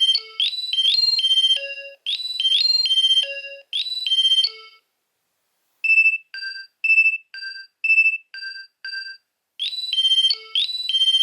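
Nokia 2300 mobile phone playing its ringtones. A quick electronic melody stops about five seconds in. After a second's pause a shorter tune of evenly spaced single notes follows, about two a second. A new fast melody starts near the end.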